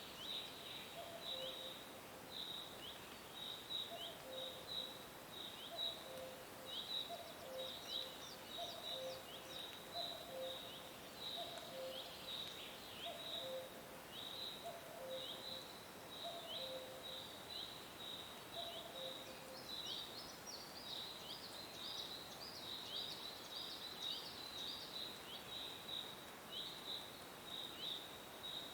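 Nature soundscape of animal calls: high chirps repeat about twice a second throughout, over a lower two-note call that repeats about once a second and stops about two-thirds of the way through.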